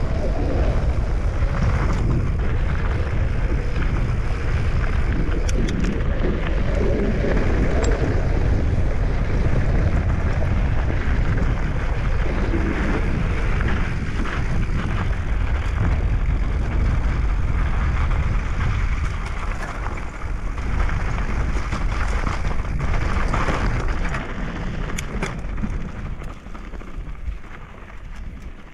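A moving vehicle rumbling steadily, with wind buffeting the microphone; it dies down over the last several seconds.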